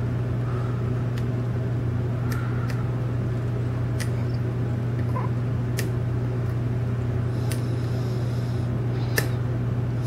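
Steady low hum of room background, with a few faint, sharp clicks scattered through it: a hook pick working the pin stack of a brass pin-tumbler cylinder lock under tension during single-pin picking.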